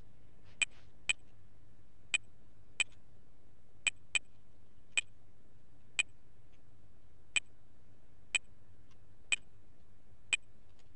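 Keystrokes on a computer keyboard: about a dozen single sharp clicks at an uneven pace, roughly one a second, as digits are typed one at a time. A steady low hiss lies underneath.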